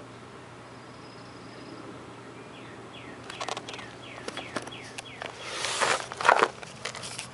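Handling noise as the camera is moved about, scuffs and small clicks, loudest as a rustling scrape about six seconds in. Behind it a bird chirps a run of short falling notes.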